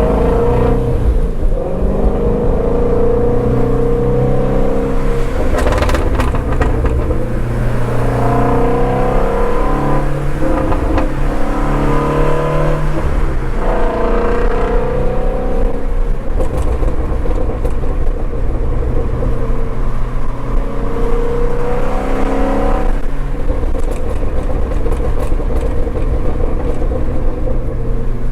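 Shelby GT350R's 5.2-litre flat-plane-crank V8 driving on the road, its engine note rising and falling with throttle and gear changes. A few short sharp crackles sound about six seconds in and again near the end.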